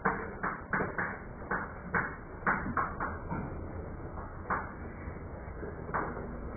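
Chalk writing on a blackboard: short, irregular taps and scrapes, a few each second, growing fewer in the second half.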